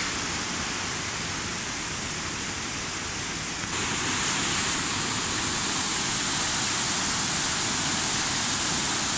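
Mountain river (Afon Llugwy) rushing over rocky rapids below a stone bridge, a steady wash of water noise. About four seconds in it gets louder and brighter.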